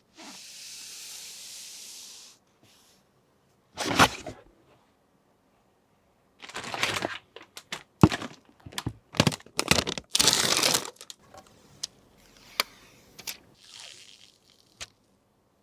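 PC parts and plastic packaging being handled: a soft hiss at the start, then bouts of crinkling and rustling with sharp clicks and knocks, busiest in the middle and thinning to single clicks near the end.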